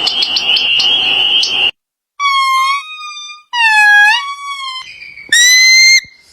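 A shrill sustained call with rapid clicks, then a series of short, clear pitched animal calls separated by brief silences: one stepping up in pitch, one arching up and down, and a higher one rising at the end.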